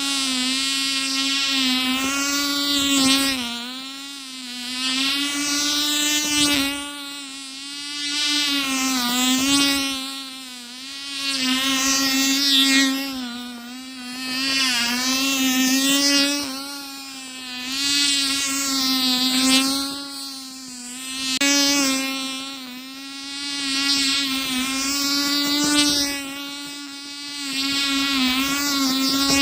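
Cox .020 model glow engine, a tiny two-stroke, buzzing at a steady high pitch as it drives an RC airboat across snow. The engine note swells and fades about every three seconds as the boat runs laps past the listener.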